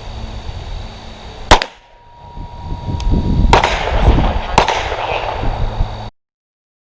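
A single loud 9mm pistol shot from a Glock 34 firing a 125-grain handload about a second and a half in, followed by a few quieter sharp knocks over a noisy background. The sound cuts off abruptly about a second before the end.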